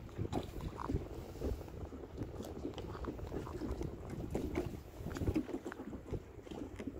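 Wind buffeting the microphone as an uneven low rumble, with water lapping below and a few faint clicks.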